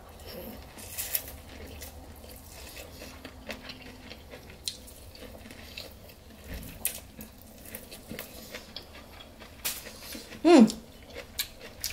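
Close-up wet eating sounds of a person eating a seafood boil with her fingers: chewing, lip-smacking and sucking sauce off her fingers, with scattered small clicks. A short hummed "mm" sounds a little over ten seconds in.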